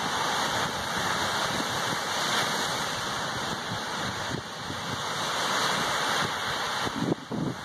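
Lake Superior surf rolling and breaking on the beach, a steady wash of waves that swells and eases, with wind on the microphone. A brief low thump near the end.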